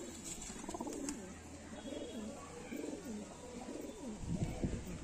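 Domestic pigeons cooing, a run of low, wavering coos one after another.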